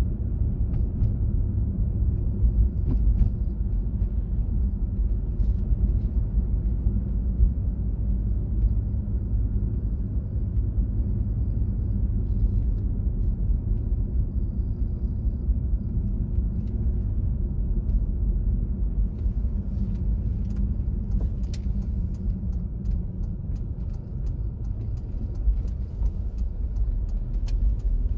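Steady low rumble of a car driving, engine and road noise, with scattered faint ticks during the last several seconds.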